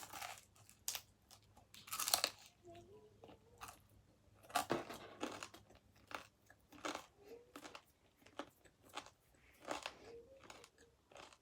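Close-up chewing of pizza, with irregular crunchy bites and mouth sounds.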